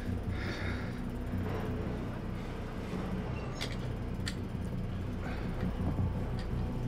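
Low, steady droning film underscore, with a few faint clicks about halfway through.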